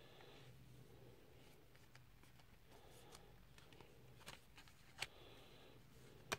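Near silence with a few faint clicks of a plastic Blu-ray case and its discs being handled, the sharpest right at the end.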